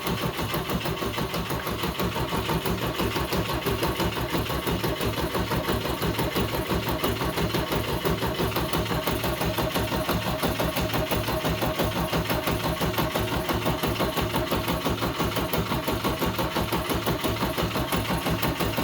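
Rebuilt Volvo B20F four-cylinder engine being turned over on its starter with rapid, even pulsing, not running on its own: a cranking check that oil is being pumped through the oil passages after the rebuild.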